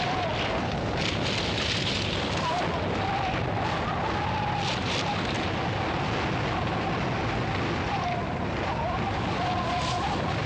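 Avalanche effect on a film soundtrack: a steady, dense rush of tumbling snow with no break. A thin wavering tone runs over it throughout.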